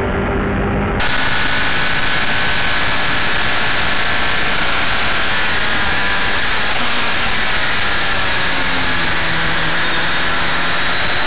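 Formula F single-seater race car engine running at high revs, heard from onboard, with heavy wind rush over the microphone. The engine note stays fairly steady, with slight dips and rises. About a second in, the sound cuts abruptly to a louder, hissier onboard recording.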